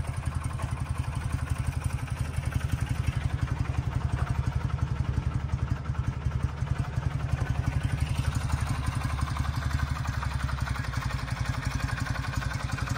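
Engine of a 1989 Subaru Sambar kei fire truck idling steadily with an even, rapid low pulse.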